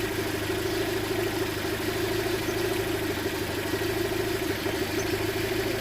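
A 2005 Land Rover Freelander's 1.8 petrol four-cylinder (Rover K-series) engine idling steadily, with an even pulsing run. The engine has a misfire that the technician suspects calls for new spark plugs.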